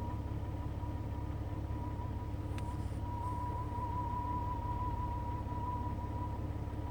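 Jeep engine idling with a steady, slightly wavering high whistle over its low rumble; the whistle grows louder in the middle, and there is one brief click. The source of the whistle is unknown, and it is not the radio.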